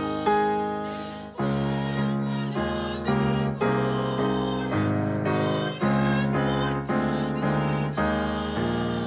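Piano playing a slow piece, chords struck about once a second, each dying away before the next.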